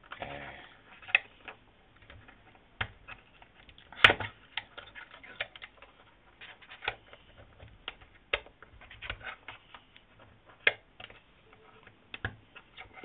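Irregular sharp metallic clicks and ticks of a steel hex key levering a worn ball bearing out of a 1:8 Losi 8ight RC buggy's steering knuckle, pushed alternately left and right. The loudest click comes about four seconds in.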